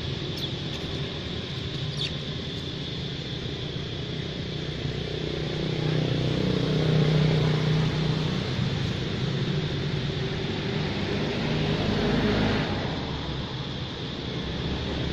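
Low motor-vehicle engine noise over a steady outdoor hum. The engine swells about six seconds in and drops away sharply about twelve and a half seconds in.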